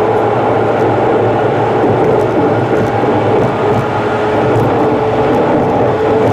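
Steady road and engine noise of a car driving on an expressway, with a constant hum, played back at about three times speed.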